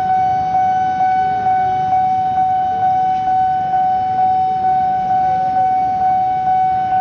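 Railway level-crossing warning alarm sounding as a commuter train approaches: one steady high tone that pulses about twice a second, over low traffic and train rumble.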